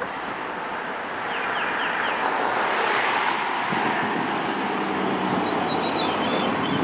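Steady rushing noise of wind and road traffic, with a few faint high chirps.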